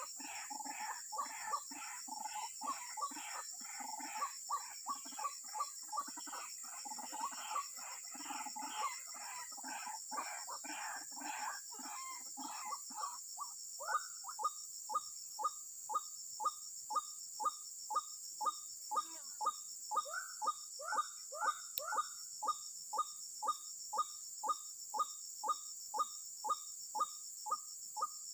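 White-breasted waterhen (ruak-ruak) calling: at first a dense jumble of harsh croaking notes, then, about halfway through, a steady run of short repeated notes, about two a second.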